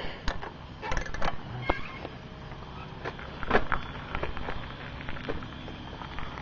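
Bicycle being ridden over grass and a gravel road: irregular clicks, knocks and rattles.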